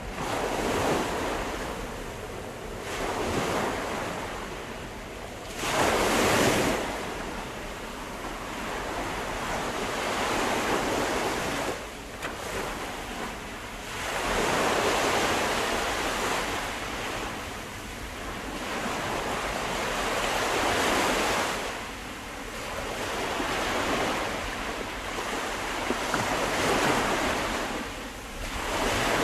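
Ocean surf: waves breaking and washing in, a broad hiss that swells and falls back every few seconds.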